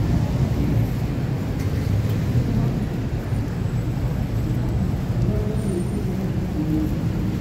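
Busy city street traffic: a steady low rumble of cars and buses running past.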